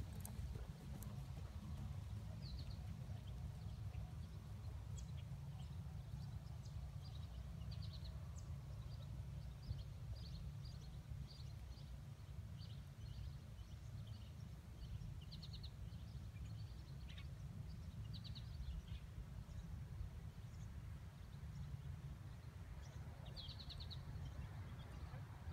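Steady low rumble of wind on the microphone, with birds chirping in short trills every second or two, and soft hoofbeats of a horse moving on arena sand.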